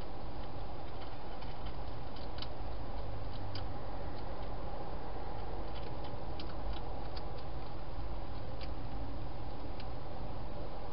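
A wild hedgehog eating at a bowl in a plastic feeding box: faint, irregular crunching clicks over a steady hiss.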